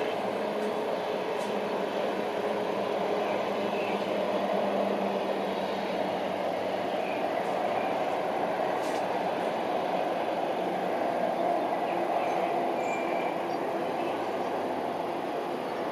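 A steady rumble of passing traffic that swells in the middle and then eases, with a few faint bird chirps above it.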